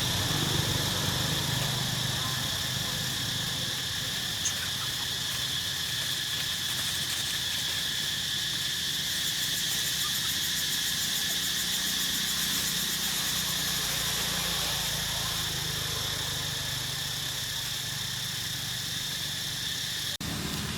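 Steady outdoor ambience: a continuous, even insect chorus with a low hum underneath and no breaks.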